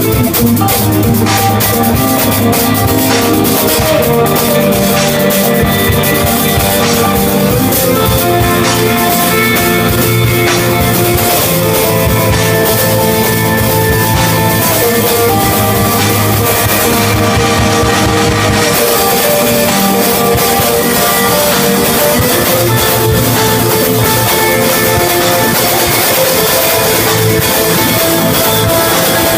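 Rock song with electric guitar and drum kit playing steadily.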